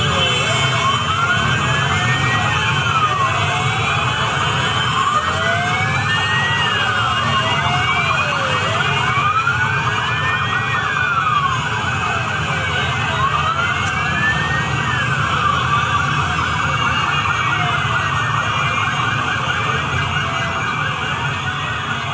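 Police escort sirens wailing, each rising and falling slowly over about four seconds, with two or more sirens out of step with each other. A steady low rumble of engines runs underneath.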